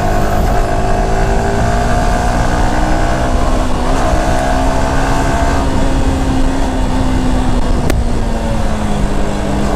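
Yamaha R15 V4 motorcycle's 155 cc single-cylinder engine running under way at speed, its pitch climbing slowly and then easing off near the end, with steady wind and road noise over the rider's microphone.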